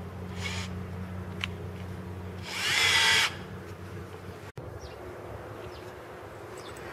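Bosch 12-volt cordless drill/driver run briefly with no load, its motor giving a short rising whine for under a second about two and a half seconds in.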